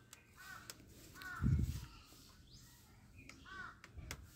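A crow cawing three times in the background, with a dull thump about a second and a half in and a sharp click at the very end from the plastic toy gun being handled.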